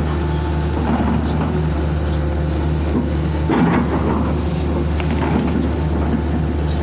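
Hitachi excavator's diesel engine running steadily, heard from inside the operator's cab. A few brief crackles and knocks come through it, about a second in, at about three and a half seconds and at five seconds, as the boom and bucket work in brush and snow.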